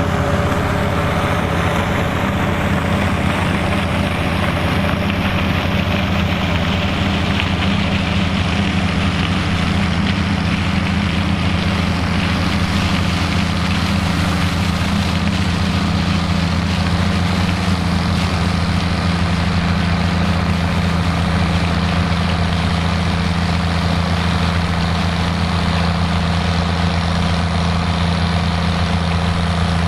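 Fiat 110-90DT tractor's diesel engine running steadily at an even speed.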